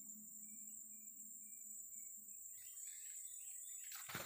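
Faint rainforest ambience: a steady high-pitched insect chirring, with a row of about five short, evenly spaced chirps in the first half. Near the end, leaves and undergrowth rustle close by.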